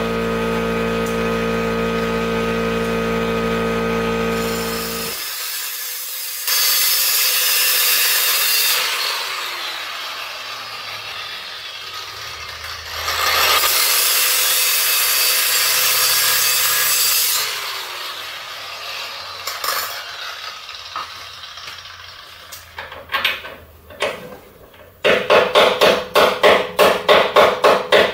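Angle grinder cutting through the seized steel of old sway bar links, a harsh metal-on-metal grinding in two long runs. Near the end, a quick run of loud, sharp metal blows.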